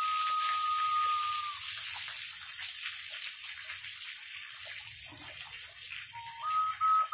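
Carved stone turtle blown as a whistle: one pure held note that stops about a second and a half in, then only the steady hiss of a small waterfall, and near the end the whistle comes back on a lower note and steps up twice in pitch.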